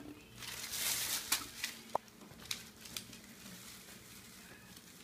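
Thin plastic shopping bag crinkling as a pet rat tangled in it moves and drags it over a tile floor. A burst of rustling comes in the first second and a half, then a few sharp ticks and quieter rustling.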